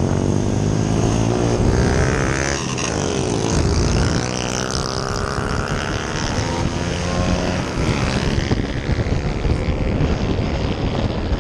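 Motorcycle engine under way, its pitch climbing as it accelerates, dropping sharply about a quarter of the way in at a gear change, then climbing again, with wind rushing past.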